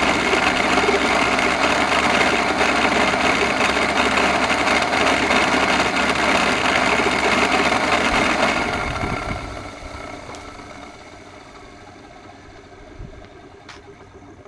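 Electrolux vacuum cleaner with a bad motor running steadily, then switched off about eight and a half seconds in, its motor winding down with a falling whine.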